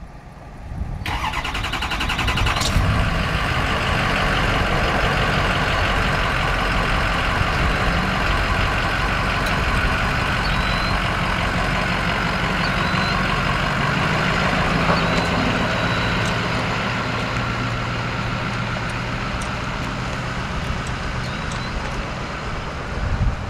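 Ford F-550 Super Duty utility truck engine cranked by the starter and catching about a second in, then running steadily as the truck moves off, its sound easing somewhat near the end.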